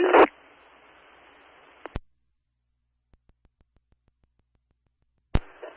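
Fire-department radio scanner audio between transmissions. A transmission ends with a click, and band-limited static hiss runs for under two seconds before cutting off with a squelch click. Near silence with a few faint ticks follows, then another click and hiss as the next transmission keys up near the end.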